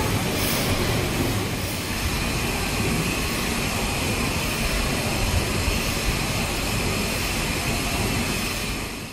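Large horizontal steam mill engine running at speed, its rope-grooved flywheel turning: a steady, dense mechanical noise, strongest in the low range, with no distinct beat.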